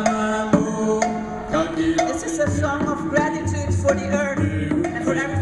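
Music with hand-drum strikes over a pitched melody. A deep pulsing bass comes in about halfway.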